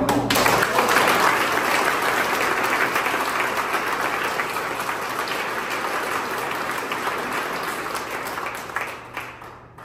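Audience of a roomful of seated people applauding, with dense steady clapping that fades away near the end.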